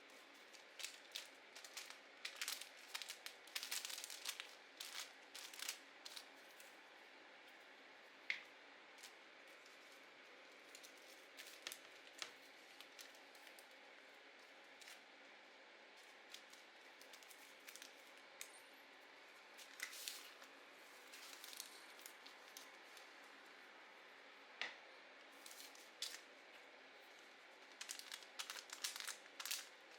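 Faint junk-journaling sounds of paper and craft tools being handled: short crisp rustles and clicks in scattered clusters. They are busiest in the first few seconds, around two-thirds of the way in, and again near the end.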